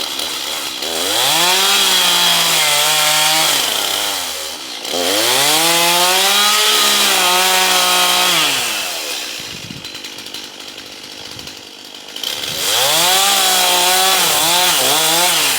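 Gas chainsaw throttled up three times, each time the engine note rising, wavering at full speed, then falling back to a lower idle between.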